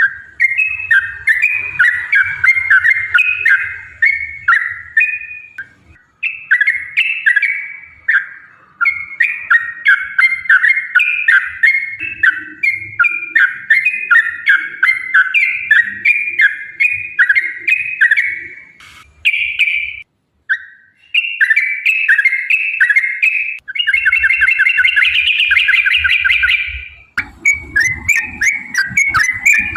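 Yellow-vented bulbul singing long, fast runs of bubbly chattering notes, broken by short pauses. About 27 s in, the song shifts and a lower, denser sound joins it.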